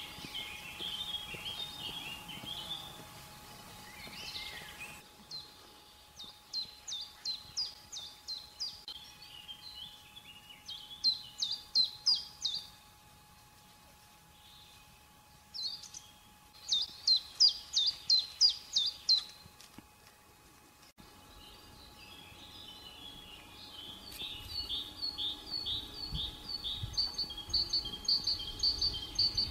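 Small songbirds singing: phrases of quick high chirps repeated several times with pauses between, and a faster trill near the end.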